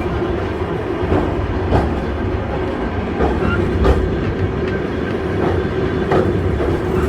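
Volk's Electric Railway car running along its narrow-gauge track: a steady low rumble with an even hum, and wheels clicking over rail joints about once a second.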